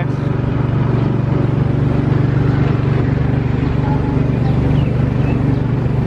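Small gasoline engine of an antique-style amusement-park ride car running steadily under way, a continuous low drone with a fast, even pulse.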